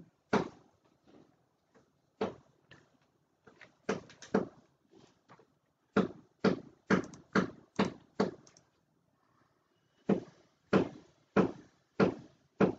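Typing on a computer keyboard: short runs of sharp key taps with pauses between them, a quick run about six seconds in and another from about ten seconds on.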